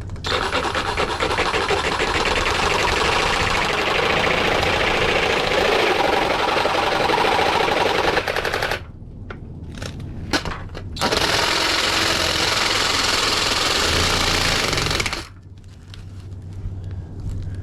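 Reciprocating saw cutting through an aluminum shower-door bottom track. It runs for about nine seconds, stops, gives a few short bursts, then cuts again for about four more seconds before stopping.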